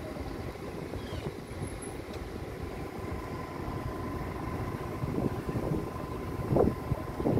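Outdoor street ambience dominated by wind buffeting the phone's microphone, an irregular low rumble, with a faint steady whine and a brief louder burst near the end.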